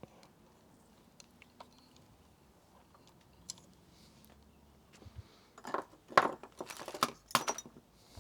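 Small clicks and metallic rattling from bike parts and tools being handled, faint at first and then a busy cluster of louder clicks and clinks near the end.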